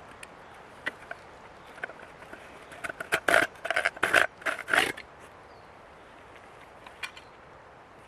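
A quick run of scraping strokes about three seconds in, lasting around two seconds, with a few light clicks before and after.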